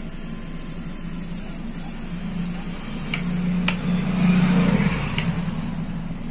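Small motor of a Nova foldable hair dryer, its fan blade removed and its shaft freshly oiled with sewing-machine oil, running on mains power with a steady hum and a high whine. It grows a little louder midway, and a few light clicks sound in the second half. It no longer makes its earlier noise.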